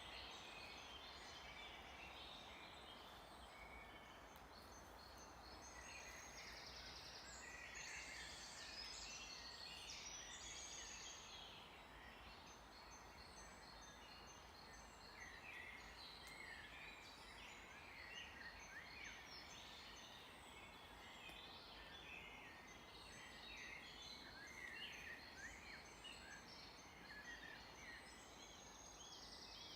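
Faint chorus of several songbirds singing and calling over a steady background hiss: short chirps and trills overlapping, with runs of evenly repeated high notes.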